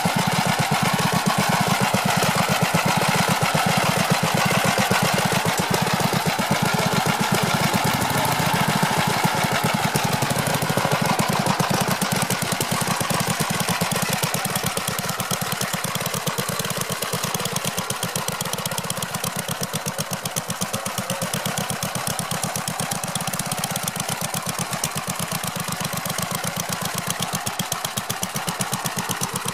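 Old Gravely riding tractor's engine running steadily under way, with a rapid, even firing beat.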